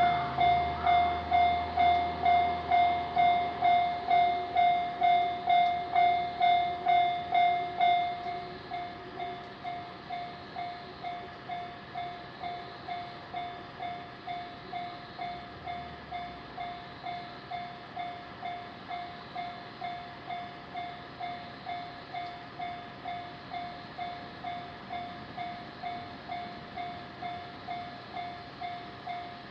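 Japanese railroad crossing warning bell ringing steadily at about two strikes a second. About eight seconds in it drops to a much quieter level and keeps ringing at the same rate.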